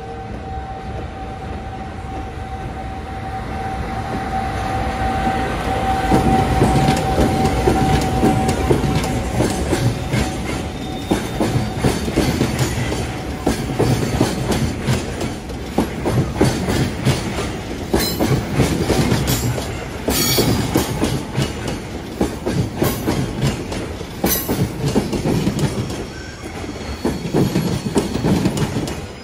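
A long freight train of tank wagons and container wagons passing close by. Its rumble builds over the first several seconds into a steady clickety-clack of wheels over rail joints, with sharp metallic squeals and clanks in the second half. A steady hum at the start fades as the train comes through.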